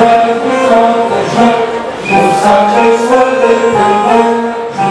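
A large crowd singing together in unison, with long held notes.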